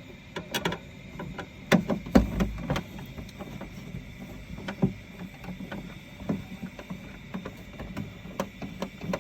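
Irregular clicks and knocks of a screwdriver working screws out of a paper shredder's plastic casing, with the odd louder knock as the casing is handled.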